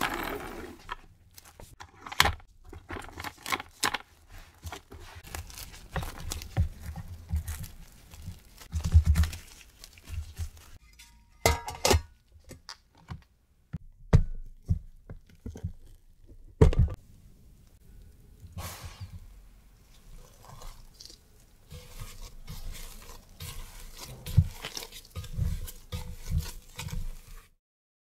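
Close-up kitchen handling sounds: plastic cling wrap crinkling and tearing over a stainless steel tray, then clicks and knocks of a plastic lid and bowl. Soft thuds from handling bread dough come near the end.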